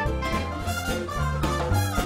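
Upbeat swing-style instrumental theme music with bass and drums.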